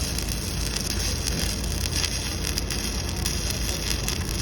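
Oxy-fuel gas cutting torch hissing steadily, with dense crackling as it cuts through steel.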